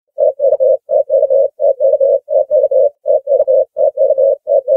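Ringneck dove cooing: a fast, steady run of short low coo notes in clusters of about three, repeating without a break, starting a moment in.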